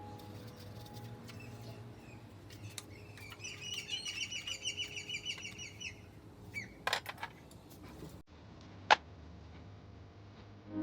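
A bird chirping in a rapid trill for a couple of seconds, over a low steady hum with scattered clicks, and one sharp click near the end.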